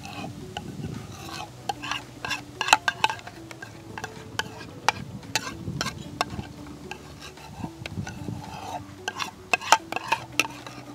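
A spoon stirring thick biryani gravy in a cooking pan, knocking and scraping against the pan in irregular clicks, two or three a second, over a light sizzle.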